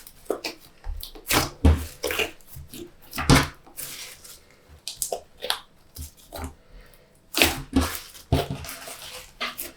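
Glossy slime being squished and worked by hand, giving irregular wet squelches and crackly pops, several a second.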